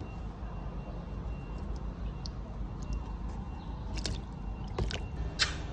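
Toothbrush scrubbing a chicken's feet in a shallow tub of water: a few short splashing scrapes about four and five seconds in. A steady low rumble runs underneath.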